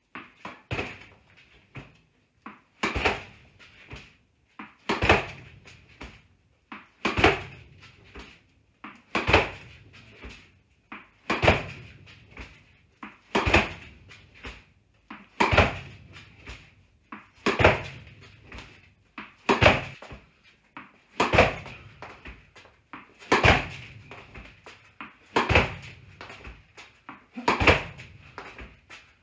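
Tennis ball hit with a racket against a homemade PVC-framed fabric rebounder, a sharp strike about every two seconds with softer knocks after each as the ball comes back off the rebounder and floor. The hits echo in a bare concrete basement.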